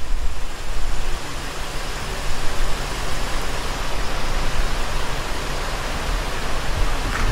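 Steady rushing roar with a deep rumble underneath, from the erupting Kirishima volcano and wind buffeting the microphone.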